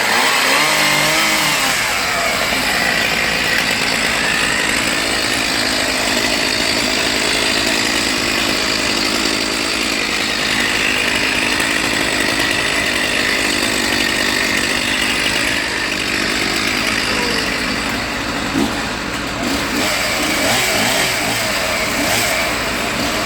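Chainsaw running steadily, its engine pitch wavering up and down.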